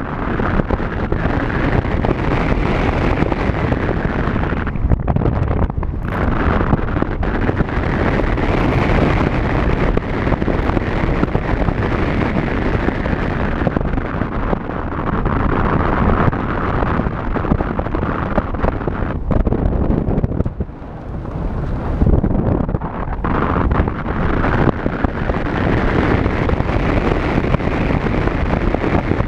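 Wind buffeting a camera microphone mounted on the outside of a moving Ford Fiesta, over the car's road and engine noise on a snow-covered road, with a few brief lulls.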